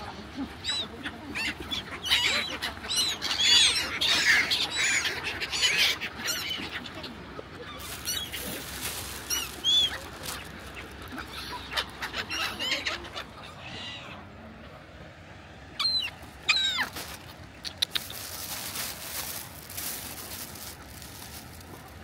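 A flock of black-headed gulls calling: many short squawking calls overlapping thickly for the first several seconds, then more scattered, with two loud calls about three-quarters of the way through.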